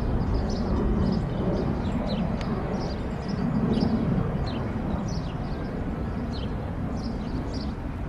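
Small birds chirping repeatedly, short high chirps that drop in pitch, about one or two a second, over a steady low outdoor rumble that swells briefly about halfway through as a vehicle drives over the grade crossing.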